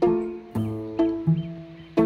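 Background music of plucked notes, about two a second, each dying away quickly.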